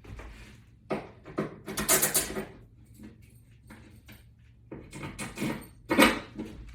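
Screws and washers being handled and sorted, clinking and rustling in two clusters of short bursts, about a second in and again around five to six seconds in.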